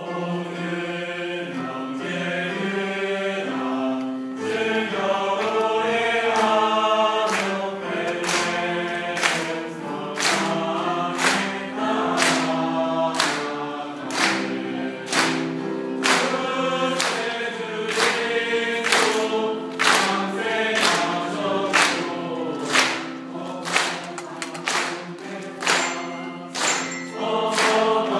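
Mixed church choir singing, with sharp handclaps keeping a steady beat of a little more than one a second from about eight seconds in.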